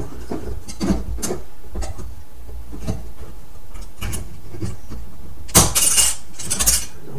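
Slide projector's sheet-metal lamp housing being handled as a tight-fitting part is worked loose: a string of small metal clicks and knocks, then louder rattling scrapes near the end.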